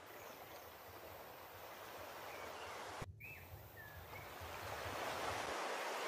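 Steady wash of surf on the beach, growing louder toward the end, broken by a brief dropout about three seconds in, with a few faint short high chirps.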